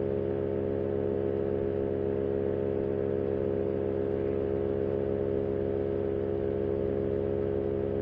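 Power2Fly RS paramotor engine and propeller running at steady cruise power in flight, a constant drone that holds one pitch.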